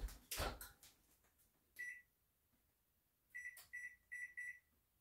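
Oven door shut with a clunk, then an electric range's control panel beeping as it is set to bake: a single short beep about two seconds in, then four quick beeps.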